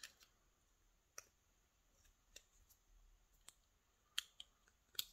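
A handful of faint metal clicks, about one a second, from a small steel tool working against a brass lock cylinder while prying at the stubborn retaining clip on its back.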